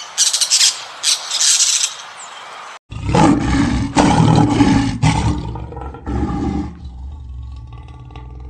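A few seconds of high-pitched chirping calls, then an abrupt change to a large animal roaring: several deep, rough roars in a row, loudest in the middle and dying down toward the end.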